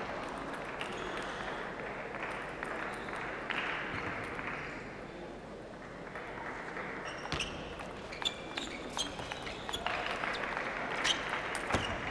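Crowd noise in a large hall dying away, then a table tennis rally: a celluloid ball struck by rubber-faced bats and bouncing on the table, a quick run of sharp clicks from about seven seconds in.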